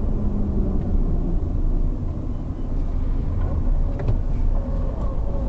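Road and engine noise inside a Lada Granta's cabin while driving, as a steady low rumble, with one sharp click about four seconds in.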